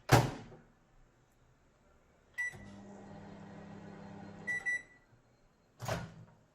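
Microwave oven door shut with a loud bang, then a keypad beep, and the oven runs with a steady low hum for about two seconds. It stops with two beeps, and the door clunks open about a second later.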